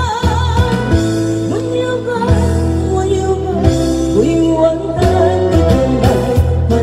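Music: a slow song from a karaoke machine's backing track, with a wavering melody line over steady bass and chords.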